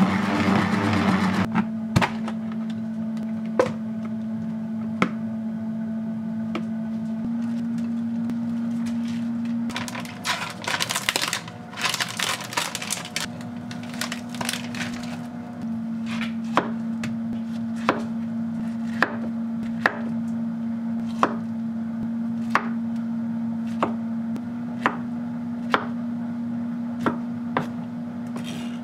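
A salad spinner whirs for about the first second and a half as it spins lettuce dry. Later a plastic tub crinkles as a cored pineapple is pulled out of it, and then a kitchen knife chops pineapple on a wooden cutting board, about one stroke a second, over a steady low tone that shifts pitch a few times.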